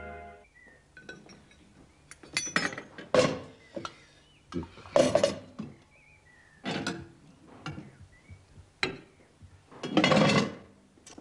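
Silver serving dishes, lids and cutlery clinking and clattering as they are handled: a string of separate metallic clanks, loudest about 3, 5 and 10 seconds in.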